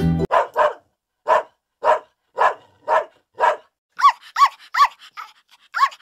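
A dog barking: about seven short barks roughly half a second apart, then from about four seconds in a few higher, yelping barks that each rise and fall in pitch.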